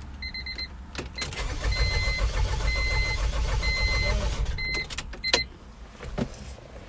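1997 Honda CR-V four-cylinder engine turned over by the starter for about three and a half seconds, not firing because the ignition coil is out for a compression test. A repeating electronic chime beeps through the cranking, and a couple of sharp clicks follow when it stops.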